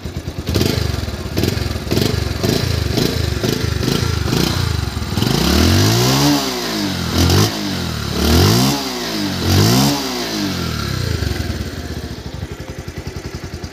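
A Bajaj Pulsar 150's single-cylinder four-stroke engine idles, heard at the exhaust silencer. From about five seconds in it is revved four times, each rev rising and falling in pitch, then it drops back to idle.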